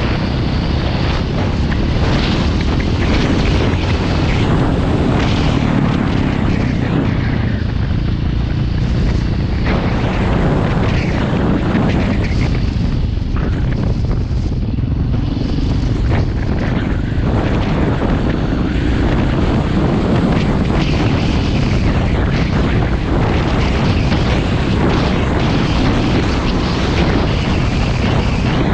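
Dirt motorcycle riding along a rough dirt track: the engine runs steadily under wind buffeting on the helmet-mounted camera's microphone, with a heavy continuous rumble.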